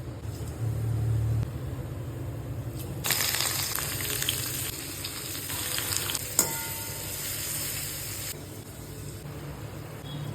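Food sizzling in hot oil in a cooking pan, starting about three seconds in and dying away after about five seconds, with one sharp clack of a utensil partway through. A steady low hum runs underneath.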